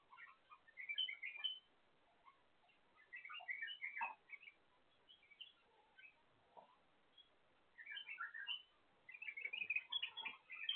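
Pet white-eared bulbuls (Iraqi bulbuls) at their nest giving quick, soft chirps in bursts of several notes every second or two, the busiest burst near the end.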